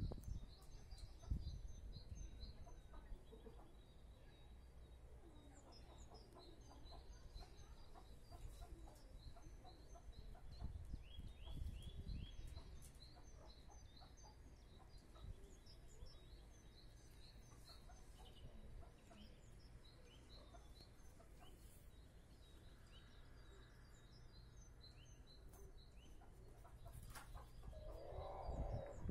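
Quiet farmyard bird ambience: small birds chirping over and over in short high notes, with occasional chicken clucks, over a steady low hum. A short louder sound comes near the end.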